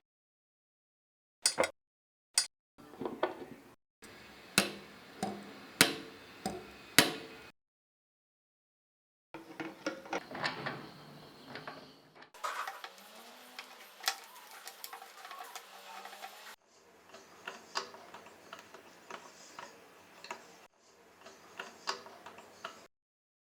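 Small metal clicks and knocks from typewriter mechanism parts being handled and worked, in several short stretches broken by sudden gaps of dead silence.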